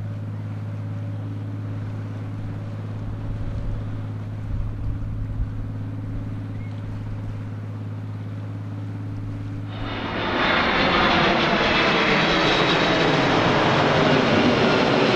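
A steady low engine hum, then about ten seconds in a sudden change to the loud rushing noise of a Boeing 777-200's twin jet engines as the airliner passes low overhead on landing approach.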